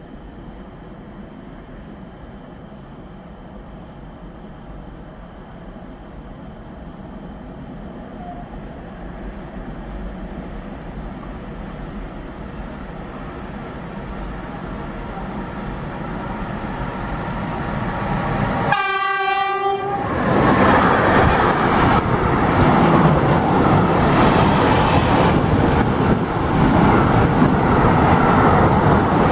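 A train approaching, its rumble growing steadily louder. It sounds one horn blast lasting about a second, then passes close by with a loud, steady rumble of wheels on the rails.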